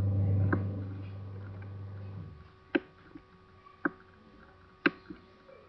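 Computer mouse clicking: four sharp single clicks spread over a few seconds. A low steady hum underlies the first click and cuts out about two seconds in.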